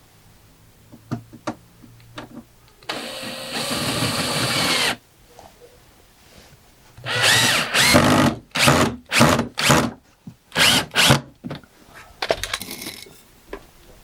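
Power drill driving screws: a few clicks, then one steady run of about two seconds, then a string of short trigger bursts whose pitch rises as the motor spins up in each.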